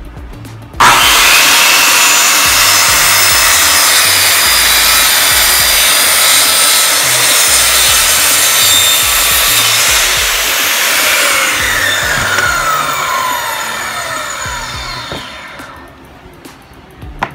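Makita circular saw starting abruptly about a second in and cutting through plywood for some ten seconds, then winding down with a falling whine after the trigger is released, fading out near the end.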